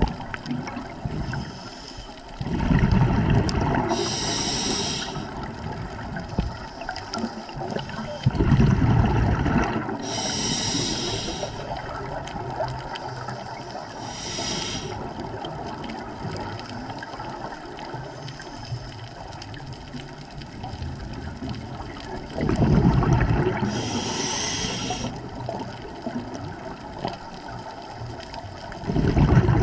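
Scuba diver breathing through a regulator underwater: four loud bursts of exhaled bubbles, and shorter hisses of inhalation through the regulator between them.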